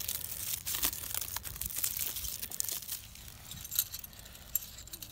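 Plastic wrap crinkling and tearing as it is stripped off two metal L brackets, with metallic clinks as the brackets are handled. Near the end come a few single knocks as they are set down on a wooden table.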